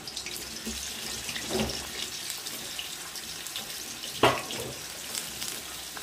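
Eggplant pieces frying in hot oil in a kadai, a steady sizzling hiss, with a sharp knock a little after four seconds.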